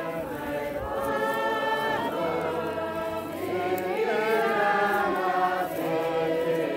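Congregation of worshippers singing a hymn together, many voices in one sustained, melodic chorus.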